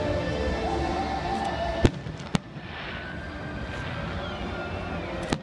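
Fireworks display: a sharp bang about two seconds in, a second half a second later, and another near the end. Crackling and a short falling whistle come between the bangs.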